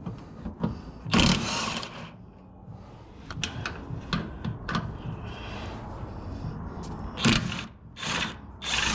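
Wrenches working on steel mount bolts: scattered metal clicks and knocks, with louder rasping bursts about a second in and twice near the end.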